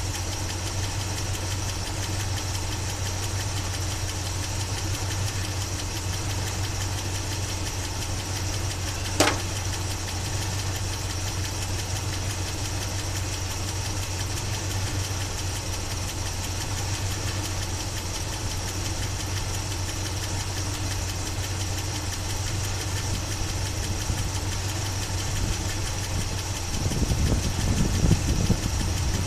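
1976 Chevy Blazer's engine idling steadily, with one sharp click about nine seconds in and a louder low rumble in the last couple of seconds.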